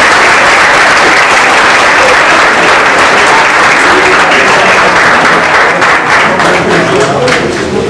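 Crowd applauding: dense, steady clapping that thins into a few separate claps near the end.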